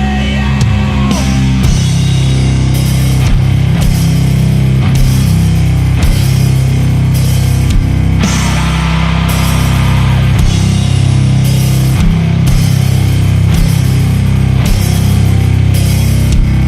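Sludge metal: heavy distorted guitar and bass chords held low and loud over drum hits and cymbals.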